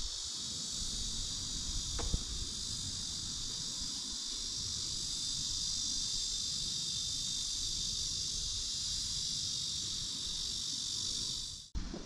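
Cicadas singing in a steady, dense, high-pitched chorus that cuts in and out abruptly.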